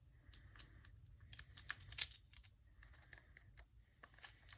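Irregular small clicks and rattles of screwdriver bits being picked through and handled in a tool kit.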